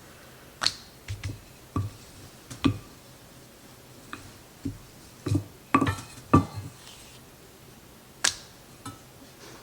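Rolling pin knocking and clicking against the counter while homemade tortilla dough is rolled out thin, about a dozen irregular sharp taps.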